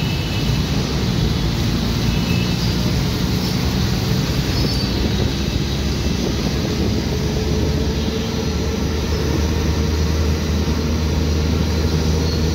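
Engine of the vehicle being ridden in, running steadily while driving, with the steady hiss of tyres and rain on a waterlogged road.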